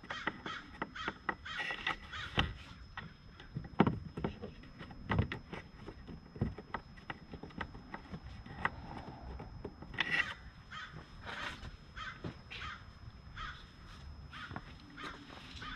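Scattered clicks and taps of small T25 Torx screws being fitted by hand and plastic intake parts being handled in an engine bay. A bird caws harshly several times in the background, around two seconds in and again around ten to twelve seconds in.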